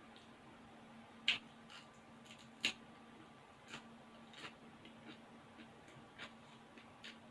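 Eating sounds: a few short, sharp clicks and smacks of mouth and utensils, the two loudest in the first three seconds, with softer ones spread after, over a faint steady hum.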